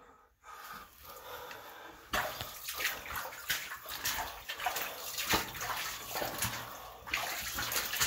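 Footsteps splashing and sloshing through shallow water on a tunnel floor: an irregular run of splashes and scuffs that starts suddenly about two seconds in and keeps going.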